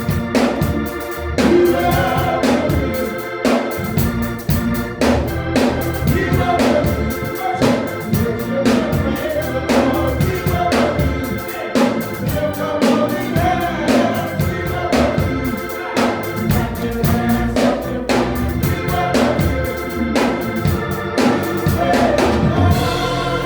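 Gospel worship music: organ with drums and singing voices. Near the end the drums stop and the organ holds on alone.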